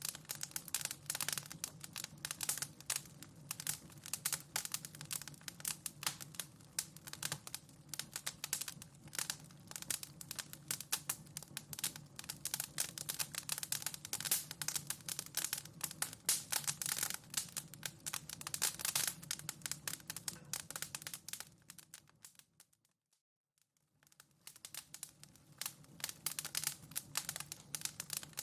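Wood fire in a fireplace crackling, with dense, irregular sharp pops and snaps. About three-quarters of the way through the sound fades out to near silence for a second or two, then fades back in.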